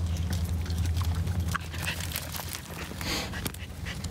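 A corgi sniffing at a log, with scattered light ticks and scuffs of footsteps on a dirt trail over a low steady rumble. There is a short hissy sniff or breath about three seconds in.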